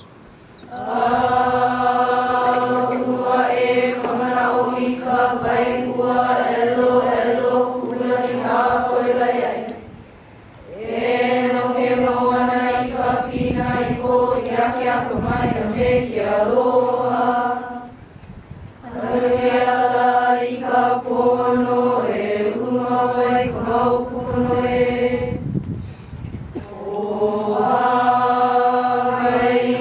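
A group of children and adults chanting in unison, holding long notes on a mostly level pitch. The chant comes in phrases of several seconds, with a brief pause for breath about every eight seconds.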